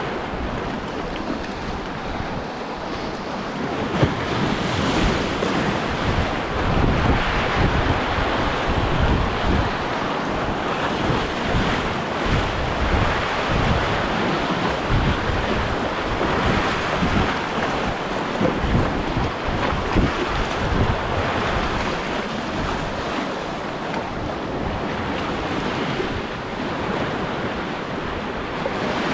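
Sea waves washing against a rocky shore, with wind buffeting the microphone in gusts.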